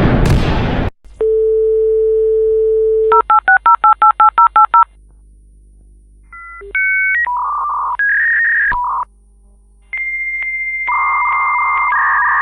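Dial-up modem connecting: a steady telephone dial tone, about a dozen quick touch-tone dialing beeps, then the handshake's changing whistle tones and hissing noise. A loud burst of noise from the previous clip ends in the first second.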